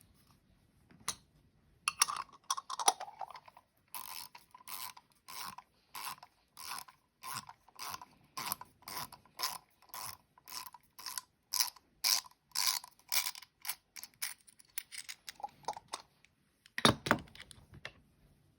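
Metal parts of a hand coffee grinder being handled and turned, giving a regular ratcheting click about twice a second for some ten seconds, with scattered clicks before and after and one sharp knock near the end.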